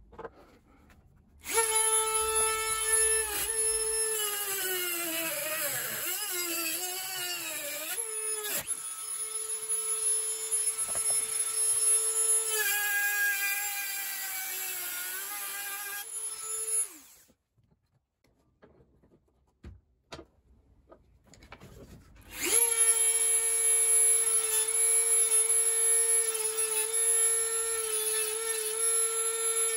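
Dremel rotary tool grinding cast aluminium: a steady high whine that wavers and sags lower in pitch for a few seconds as the bit bites into the metal. It stops for about five seconds midway, with a few small clicks, then starts again and runs steadily.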